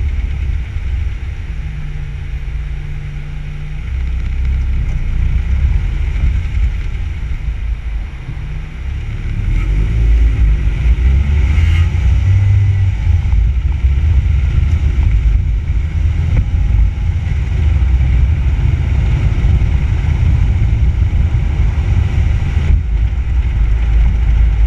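Car driving on a town road, heard from a camera on its front bumper: a deep road and engine rumble with wind buffeting the microphone. It grows louder about ten seconds in as the car gets going.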